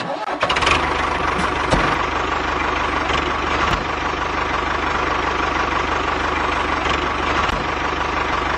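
Tractor engine running steadily, with a low even beat and a few sharp clicks.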